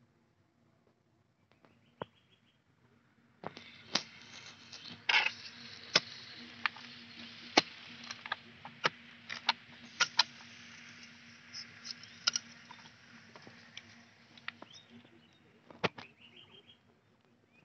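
Hand hoe chopping into grassy turf and wet soil: a run of irregular sharp strikes with scraping and rustling of grass and earth between them. It starts a few seconds in and thins out near the end.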